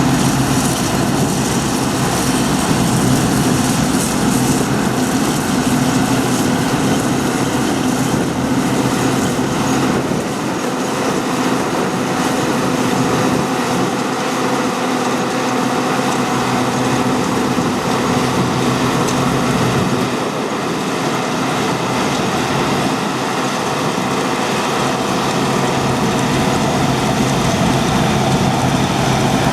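Heavy diesel farm machinery running steadily under working load, a continuous loud engine drone. The deepest part of the sound drops off a little about ten seconds in and again about twenty seconds in.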